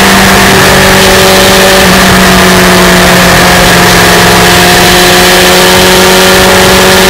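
Yamaha FZR1000's inline-four engine running steadily at highway cruising speed, its note edging slightly higher near the end, under a loud, continuous rush of wind noise.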